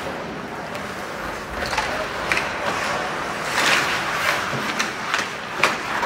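Ice hockey play: skate blades scraping and carving on the ice, with several sharp clacks of sticks and puck scattered throughout.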